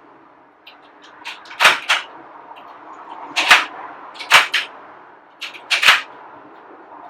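Sharp metallic clacks and clicks of a Whitco Tasman triple-lock security screen door lock being worked: about five loud clacks spread over several seconds, with softer clicks between, as the bolts and latch snap.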